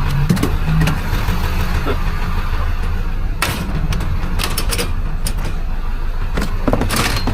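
A truck engine running steadily with a deep rumble, with brief clusters of sharp clicks and knocks about three and a half seconds in and again near the end.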